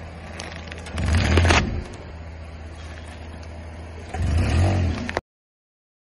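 A car tyre rolls over a head of cabbage on asphalt, crushing it with a crunching, crackling sound about a second in, over the low sound of the car moving. A second low vehicle rumble comes near the end, then the sound cuts off suddenly.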